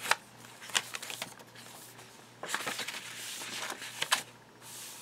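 Paper pages and cards of a handmade journal being handled and turned: a few light paper taps, then a longer rustle about halfway through as a page is turned, ending in a sharper tap.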